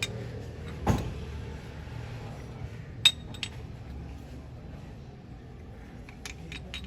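Metal parts and hand tools clinking and knocking against each other: a dull knock about a second in, two sharp clinks around three seconds, and a quick run of clinks near the end.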